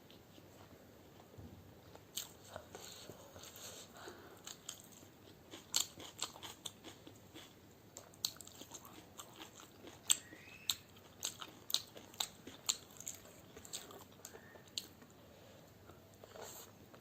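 A person chewing and biting food close to the microphone, with irregular crisp crunches and wet mouth clicks.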